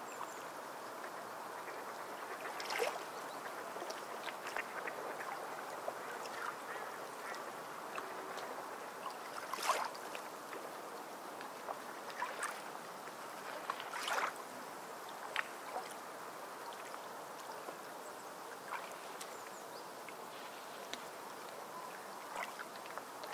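Steady rushing ambience of running water, with short sharp calls scattered through; the loudest come about three, ten and fourteen seconds in.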